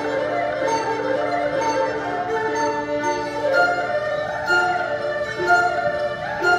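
A small live instrumental ensemble playing a slow melody in held notes, with bowed strings and a flute carrying the tune.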